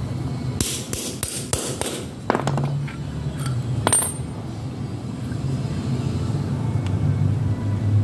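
Metal tools clinking and knocking on metal parts: a quick run of sharp clinks in the first two seconds, then two more single knocks, over a steady low hum.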